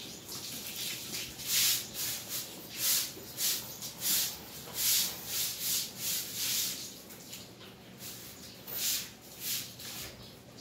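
Broom scrubbing a wet concrete floor in repeated swishing strokes, about one to two a second, with a brief pause about eight seconds in.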